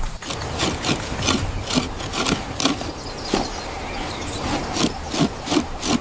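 Wood being worked by hand in quick, uneven scraping strokes, a few a second.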